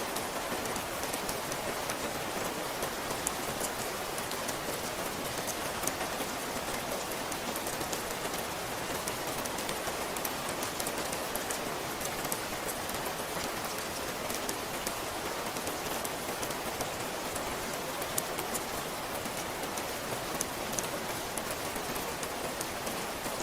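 Steady rain falling and pattering on a surface, a constant hiss dotted with fine, crisp drop ticks.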